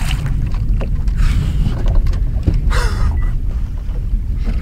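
Wind rumbling steadily on the microphone over open, choppy water, with a few faint knocks.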